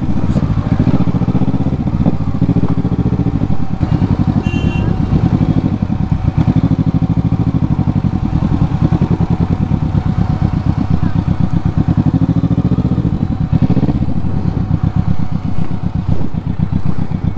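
Kawasaki motorcycle engine running steadily, a fast even throb of firing pulses.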